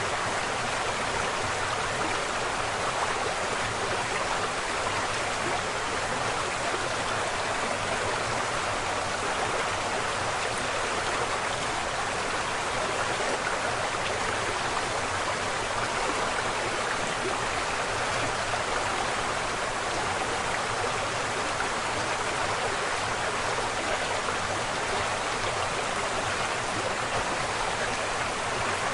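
River water rushing and splashing over a small waterfall, a steady, even rush of water.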